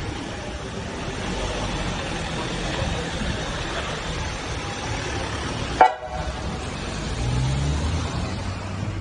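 Ambulance van pulling away, its engine running under a steady rumble of traffic noise, with one short, loud horn toot about six seconds in. Near the end a low engine note rises as it drives off.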